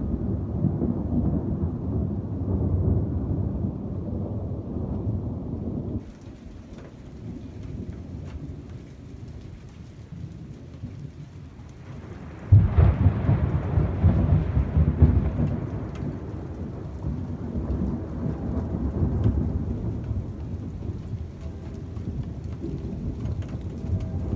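Thunder rumbling, the rumble cutting off about a quarter of the way in; then, about halfway through, a sudden loud crack of thunder that rolls on as a long low rumble. Rain falls throughout the second half, with scattered drop ticks.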